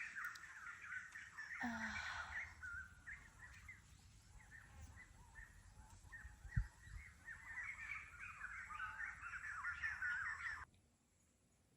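Small birds chirping and twittering in a dense, continuous chorus that cuts off suddenly near the end, with one short low thump about two-thirds of the way through.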